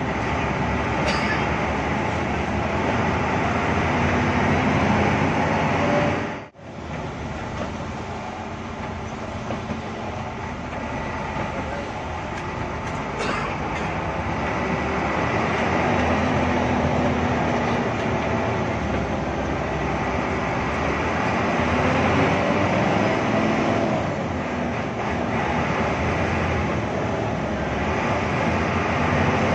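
Hino AK8 bus's six-cylinder turbo-diesel engine running under way, heard from inside the cabin together with road noise, its pitch rising and falling as the bus gathers and loses speed. The sound drops out suddenly for a moment about six and a half seconds in.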